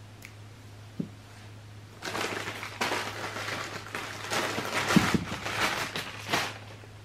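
A single soft knock about a second in, then rustling and crackling handling noise full of small clicks from about two seconds in, stopping shortly before the end.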